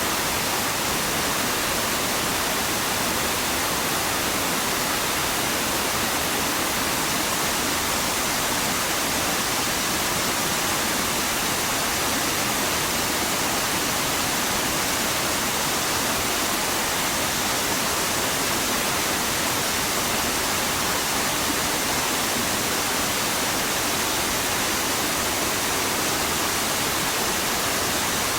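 Steady rush of water from a fast-flowing mountain stream, an even hiss with no breaks.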